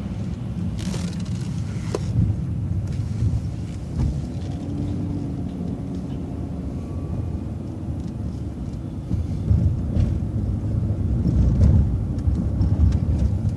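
City transit bus running, heard from on board: a steady low engine and road rumble, with a few sharp clicks and knocks.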